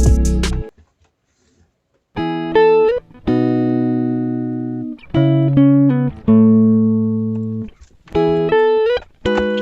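Background music. A fuller passage cuts off about a second in, and after a short silence a slow melody of single plucked-string notes follows, each note ringing and fading, some sliding up or down in pitch.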